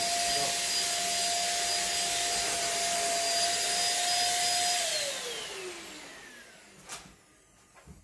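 Deerma DX700 corded stick vacuum cleaner running at full suction on a mattress, a steady whine over a rush of air. About five seconds in it is switched off and the whine falls in pitch and fades as the motor spins down, followed by a single knock.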